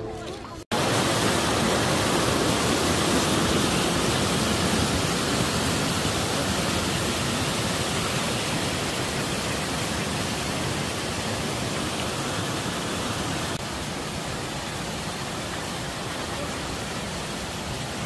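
Falling water of waterfalls and cascades rushing steadily, a little quieter for the last few seconds.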